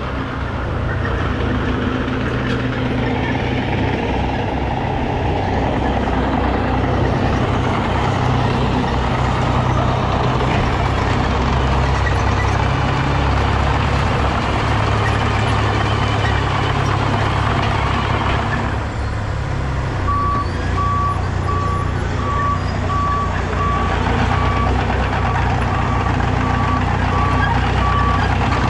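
Heavy diesel engines of an asphalt milling machine and dump trucks running steadily. About two-thirds of the way through, a backup alarm starts beeping at a steady, even rate.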